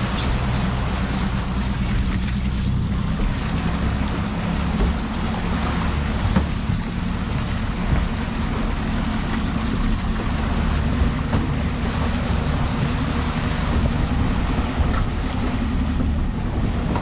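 Outboard motor running steadily while the boat trolls, under a rush of wind and wake water.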